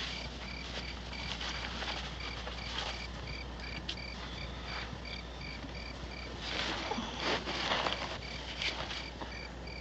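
Crickets chirping in a steady pulsing rhythm, about two chirps a second, over a low hum. Soft rustling comes in a few short bursts in the second half.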